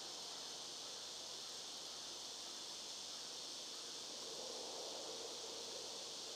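A steady, high-pitched insect chorus, with faint scraping from a hand carving chisel working the wooden cane stem.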